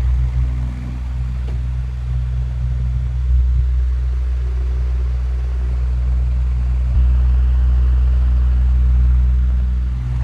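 Electric wall fan running, with a loud steady low motor hum made of several constant tones.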